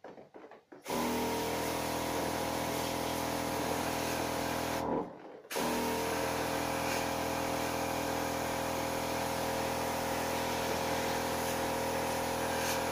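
Battery-powered spray washer's pump motor running with a steady hum under the hiss of the water jet, washing an air conditioner's indoor unit. It starts about a second in, cuts out briefly near five seconds, then starts again and runs until near the end.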